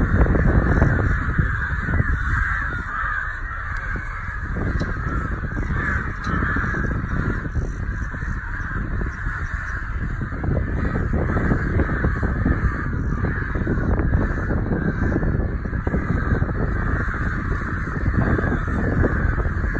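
A flock of crows cawing without a break, many calls overlapping into a dense chorus, over a low rumble.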